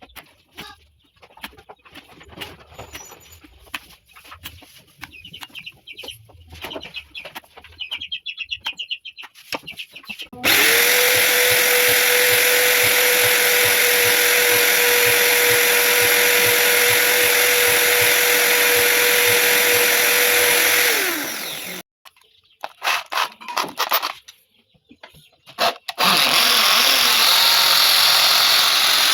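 Scattered clicks and knocks of work on wood, then a high-speed electric power tool starts, runs steadily at one pitch for about ten seconds and spins down; after a few more knocks the tool starts again near the end.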